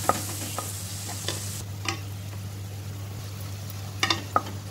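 Chopped onion and tomato sizzling in oil in a nonstick kadai as they are sautéed until soft, stirred with a spatula that clicks against the pan now and then, with a quick cluster of clicks about four seconds in.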